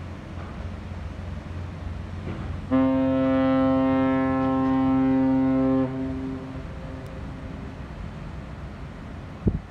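A ship's horn sounds one steady, deep blast of about three seconds, starting a few seconds in and trailing off briefly after it stops, over a steady low rumble.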